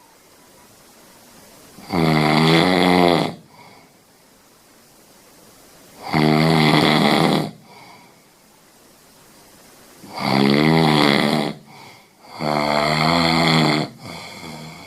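A person snoring loudly: four long snores, each over a second, with a wavering pitched tone. The first three come about four seconds apart, and the last follows close on the third.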